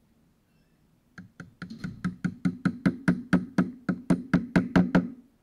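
Rapid, even knocking on a screwdriver worked against a handle rivet of a Marshall amp cabinet, about five knocks a second, growing louder and then stopping abruptly.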